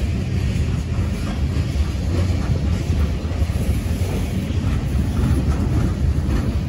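Long mixed freight train passing through a grade crossing: a steady rumble of railcars and wheels rolling over the rails.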